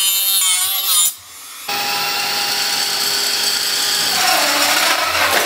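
Cordless Dremel rotary tool running as a helicopter's motor, whining as it spins the rotor through a plastic drive gear. The sound breaks off briefly about a second in, then runs steady, and its pitch falls near the end as the motor slows.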